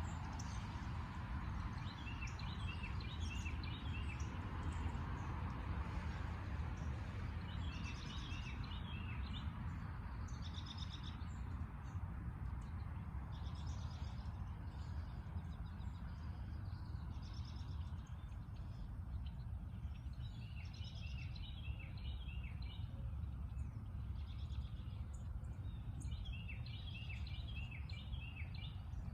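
Songbirds singing at dawn: one bird repeats a phrase of quick, high notes four times, with other birds' shorter calls between. A steady low rumble underlies the birdsong.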